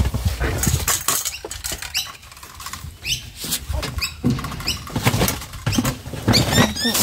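Rustling of plastic rubbish bags with irregular clicks and knocks from a handheld grabber tool working inside a metal dumpster. Short high squeaks and chirps recur throughout.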